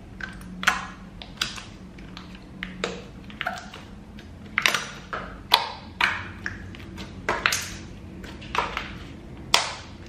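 Thick clay slime being squeezed and poked by hand, giving a dozen or so sharp pops and clicks at irregular intervals.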